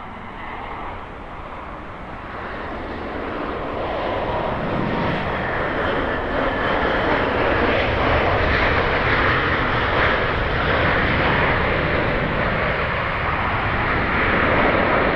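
Airbus A321-200 airliner's twin jet engines running, a steady rushing noise that grows gradually louder throughout.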